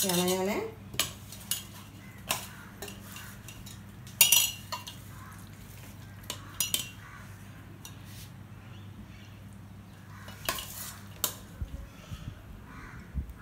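A metal spoon clinking and scraping against a stainless-steel pot and glass jars as sticky shredded-mango murabba is spooned into the jars. The clinks are scattered, the loudest about four seconds in, over a low steady hum.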